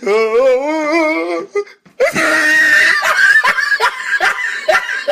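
Hard laughter: a long, wavering, high-pitched laugh, a brief break about a second and a half in, then loud, breathy laughter in quick pulses.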